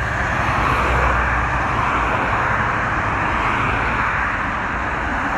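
Steady road traffic: cars passing on a multi-lane road, tyre and engine noise with a low rumble underneath.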